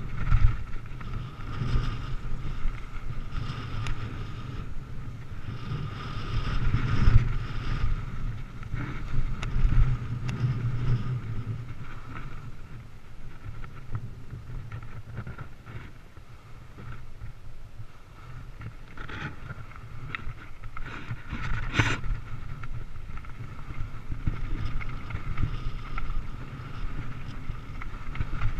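Mountain bike riding over a dirt trail, recorded on a bike- or rider-mounted camera: wind buffeting the microphone over a steady low rumble and rattle from the bike on the ground. One sharp knock comes about two-thirds of the way through.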